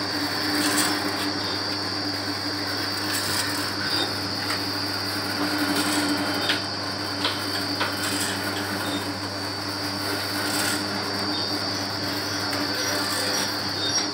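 Vertical pouch packing machine running steadily, with a continuous mechanical hum and a steady high whine. Faint clicks come now and then over the hum.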